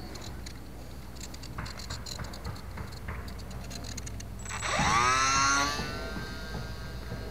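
The micro RC plane's electric motor and propeller spin up fast to a loud whine about four and a half seconds in as it is hand-launched, then ease to a steadier, quieter whine as it flies off. A few light clicks come before.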